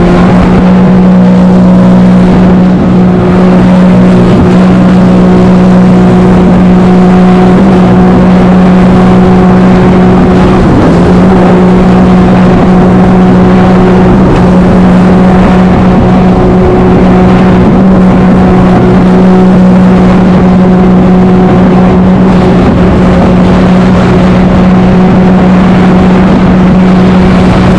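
Jet ski engine running at steady high revs while planing, over the rush of water spray off the hull. The engine note wavers briefly about eleven seconds in.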